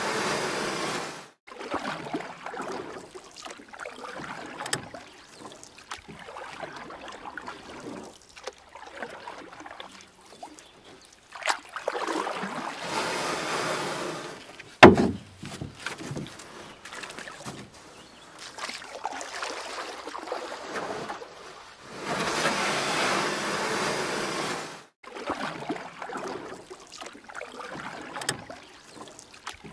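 Kayak paddling: water splashing and running off the paddle blade near the bow in spells of a few seconds, with quieter trickling and lapping of water between them. A single sharp knock about fifteen seconds in is the loudest sound.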